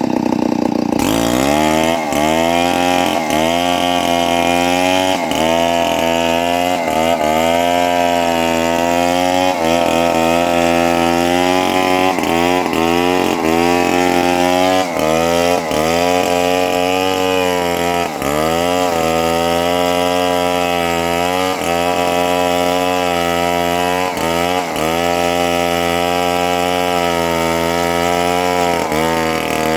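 Chainsaw engine running at high revs while cutting through a leucaena tree. Its pitch dips and recovers every second or two as the chain bites into the wood. The engine revs up about a second in.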